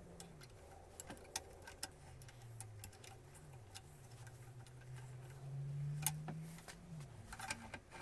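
Scattered light metallic clicks and taps of hands working a bench drill press: a drill bit being set in the chuck and a small part placed in a machine vise. Underneath, a faint low hum wavers up and down in pitch, swelling a little about six seconds in.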